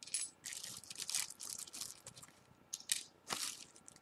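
Small phone parts and their packaging being handled: a run of short rustles with light clicks, one sharper click near the three-second mark.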